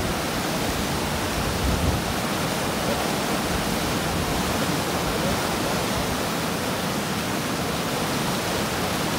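Steady rush of whitewater churning through a river rapid's standing wave.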